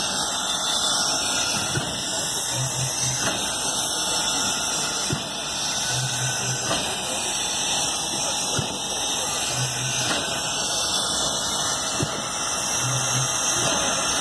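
ČSD class 498.1 'Albatros' steam locomotive standing at the platform, with a steady loud hiss of steam. A short low throb comes about every three seconds.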